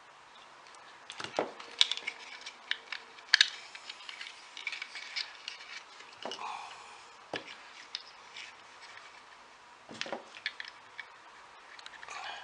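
Irregular small clicks, taps and rubbing of hands handling the multimeter's test leads and plug-in BNC adapter, with a few sharper knocks.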